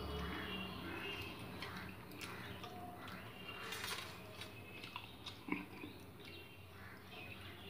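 Fingers mixing rice and curry on a steel plate: soft squelches and small clicks, with one sharp clink about five and a half seconds in as a steel bowl meets the plate.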